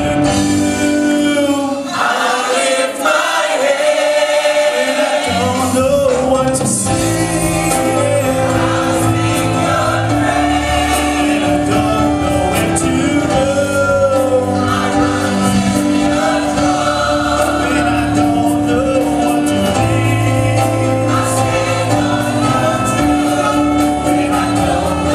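Gospel choir singing with a live band. The bass drops out briefly near the start and comes back in about five seconds in.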